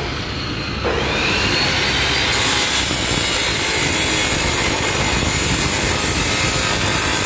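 Worx WU763 355 mm abrasive cut-off saw: its motor starts about a second in with a rising whine as the disc spins up, then the abrasive disc bites into a steel bar, and a steady high grinding hiss runs on under the motor.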